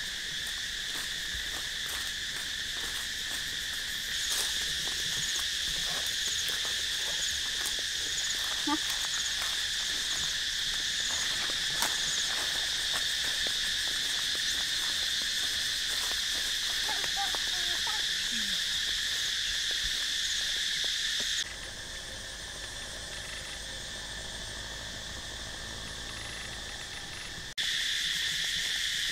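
Steady, high-pitched chorus of insects buzzing, with soft footsteps and a few faint short chirps. The insect chorus drops away suddenly about 21 seconds in and comes back about six seconds later.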